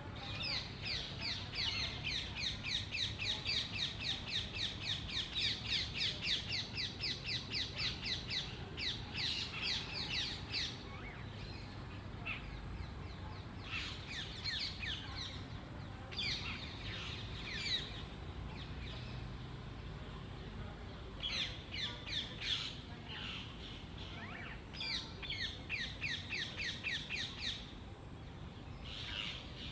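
Rose-ringed (Indian ringneck) parakeet calling: rapid runs of high-pitched repeated calls, several a second, in bouts of a few seconds separated by short pauses.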